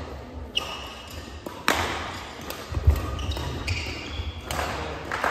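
Badminton rally in a hard-floored sports hall: rackets strike the shuttlecock with sharp smacks, the loudest about 1.7 s and 3 s in. Court shoes squeak on the floor and feet thud during the footwork.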